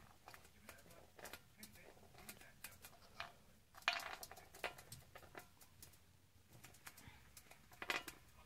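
Budgerigar chattering quietly in short chirps and warbles, with light clicks and taps from its beak and feet on a metal tray; the loudest bursts come about four and eight seconds in.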